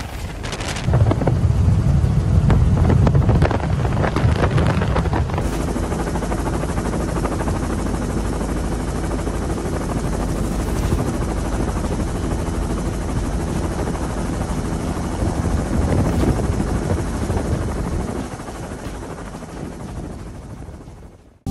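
Steady helicopter rotor and engine noise mixed with wind rushing on the microphone, with a heavier low rumble in the first few seconds. It fades near the end and then cuts off.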